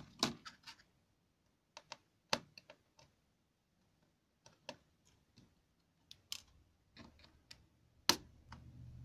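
Scattered light clicks and taps of a small screwdriver and laptop circuit boards and plastic parts being handled during disassembly, with the sharpest click about eight seconds in.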